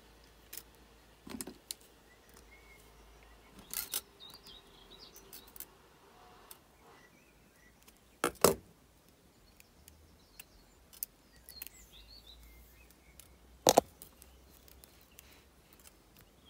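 Scattered light clicks and taps of copper jewellery wire being bent and wrapped by hand, the loudest a double click about eight seconds in and another near the end.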